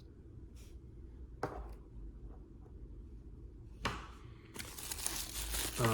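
Plastic miniature packaging being handled: a few light clicks and taps, then a dense crinkling of plastic wrapping that starts about four and a half seconds in.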